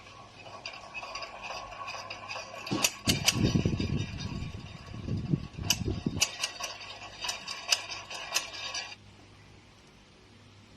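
Sound effect from an ESS ONE PLUS engine sound simulator for RC models, played through its small speaker: a run of sharp clicks over a hiss, with low rumbling bursts in the middle, cutting off about nine seconds in.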